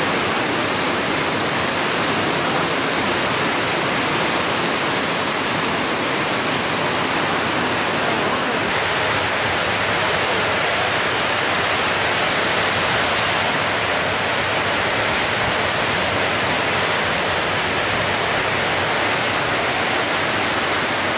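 Heavy rain pouring down in a loud, steady hiss. Its sound shifts slightly about nine seconds in.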